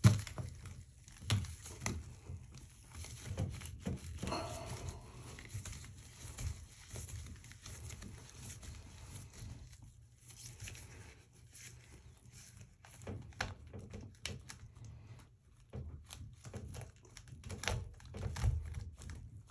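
Plastic 3-inch twist-and-set toilet repair flange being worked down into the drain pipe by hand: irregular knocks, scrapes and rustling of the flange against the pipe and the broken-up subfloor, with the sharpest knock right at the start.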